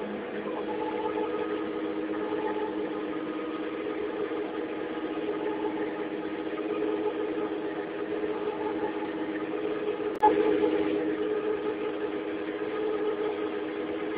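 Engine running steadily with an even, mid-pitched hum, and one sharp knock about ten seconds in.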